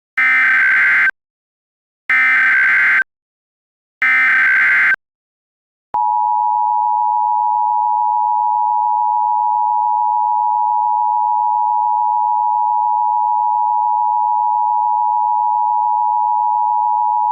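Emergency Alert System alert tones: three bursts of screechy digital data tones (the SAME header), each about a second long and a second apart. About six seconds in they give way to the steady two-tone attention signal, held loud and unchanging, which announces an emergency alert message.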